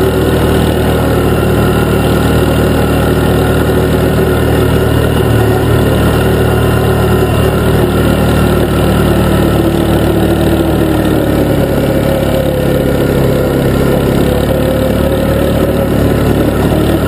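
ATV engine running steadily while riding along a dirt trail, its pitch sinking slowly and then rising again in the second half.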